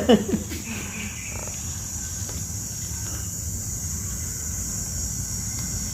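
Steady background noise: a constant high hiss over a low hum, with a voice trailing off at the very start.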